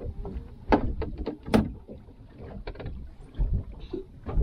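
Scattered knocks and clicks from a fishing rod and tackle being handled on the deck and gunwale of a small fiberglass boat, the loudest knock about a second and a half in, over a steady low rumble of wind and water.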